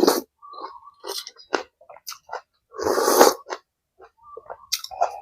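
Close-miked eating: irregular short chewing and smacking sounds, with one longer, louder noisy burst about three seconds in.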